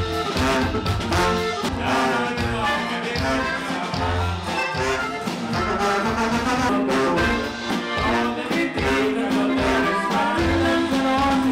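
Brass-led music with trumpets and trombone playing a melody over a pulsing low bass line.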